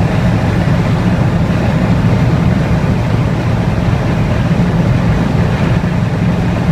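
Early Ford Bronco's engine pulling steadily in third gear at highway speed, heard from inside the cab, with small intermittent stumbles from a misfire.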